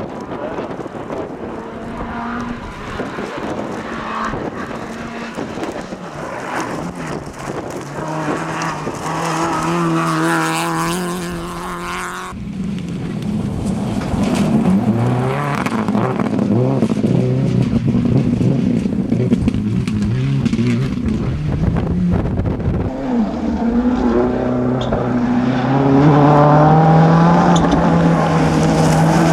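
Rally car engines at full throttle, revving up and dropping back in steps as they shift through the gears. The sound changes abruptly about twelve seconds in to a different car, and near the end an engine note climbs and grows louder.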